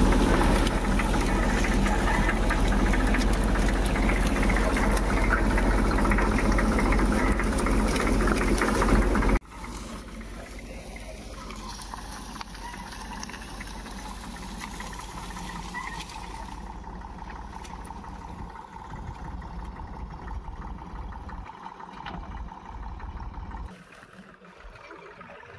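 Old tractor engine running, loud and close from the driver's seat. About nine seconds in the sound drops suddenly to a quieter, steady engine note of the tractor working a short way off, and it drops again near the end.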